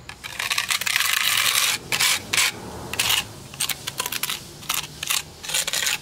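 Putty knife scraping across rough asphalt, spreading and flattening freshly applied crack filler: one long stroke at the start, then a string of shorter scrapes.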